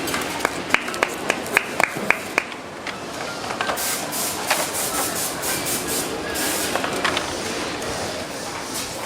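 Assembly-line workshop noise: a quick run of about eight sharp clicks, then hissing and light clattering over a steady background din.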